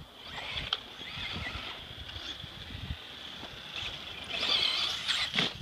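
Traxxas Slash RC short-course truck running on asphalt: a steady high electric-motor whine with tyre noise and a few sharp clicks. It gets louder about four seconds in as the truck comes close.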